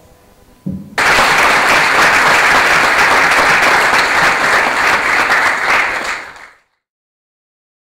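Audience applauding, starting suddenly about a second in and dying away quickly after about five and a half seconds.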